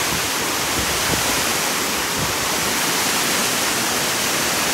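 Waterfall pouring into a plunge pool: a steady, unbroken rush of falling water.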